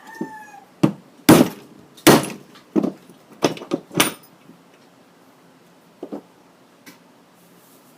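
A brief falling tone, then a run of sharp knocks and clatters of hard objects striking, about seven over a few seconds, with two fainter knocks near the end.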